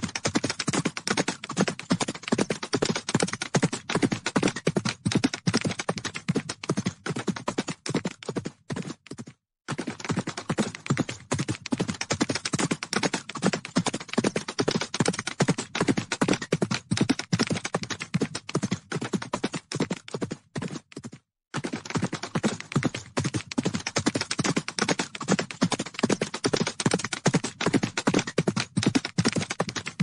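Hoofbeats of a large herd of horses galloping: a dense, rapid drumming of many hooves. It cuts out briefly twice.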